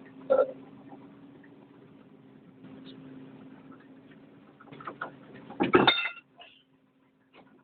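Metal knocks and clanks of tools and parts being handled while a drive motor is taken apart, with the loudest clatter about six seconds in, over a steady low hum.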